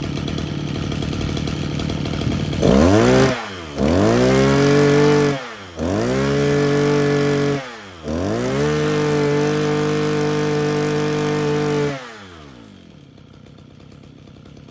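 Mitsubishi TL261 26 cc two-stroke brush cutter engine idling, then revved four times on the throttle. Each rev climbs quickly in pitch, holds and drops back, and the last is held about four seconds before the engine falls back to a quieter idle.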